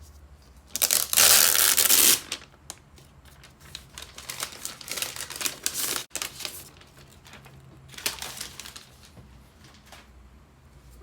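Packaging being handled and crinkling: a loud crinkling rustle for about a second and a half near the start, then softer crinkles and rustles on and off.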